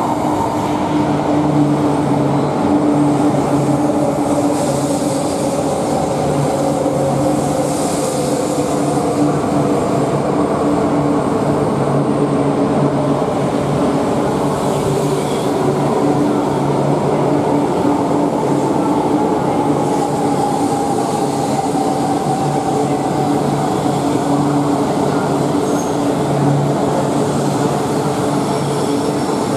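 E4 series Max double-decker Shinkansen arriving along the platform and slowing down. It gives a steady low hum under whines that slowly fall in pitch as the train decelerates.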